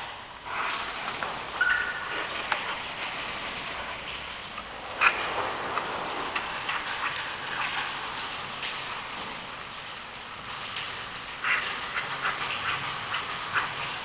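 Water spraying from a handheld shower head: a steady hiss that starts about half a second in and thins out near the end, with a few clicks and knocks.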